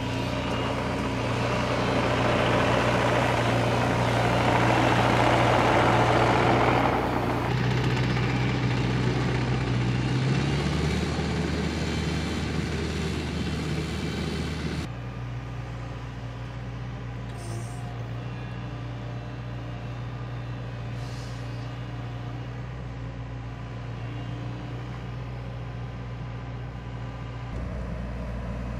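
Takeuchi compact crawler excavator running, its engine a steady low drone. For the first seven seconds a loud, noisy rush from the machine working rides over it. The sound then changes abruptly a few times, quieter and steadier after about fifteen seconds.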